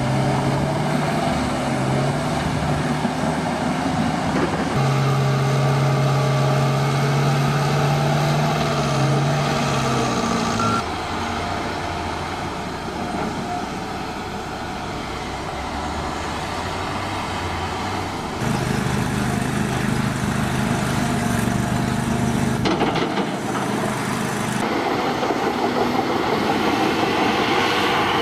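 Heavy diesel engines of a John Deere excavator and articulated dump trucks running under working load. The engine note steps up and down several times as load changes, easing off and going quieter for several seconds mid-way before picking up again.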